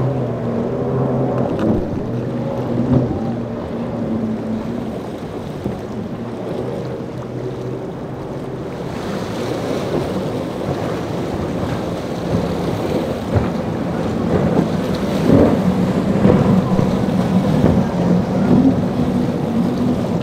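Outboard motors of speedboats running at speed through choppy inlet water, with hull slap, spray and wind on the microphone. For the first several seconds a single outboard gives a steady drone. About nine seconds in, a center-console boat's outboards take over, with more rushing water and wave wash that grows louder toward the end.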